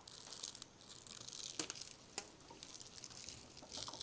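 Faint dry rustling and crackling of a bundle of dried lavender stems handled in the hands while a rubber band is wound around them, with a couple of small sharp clicks about one and a half and two seconds in.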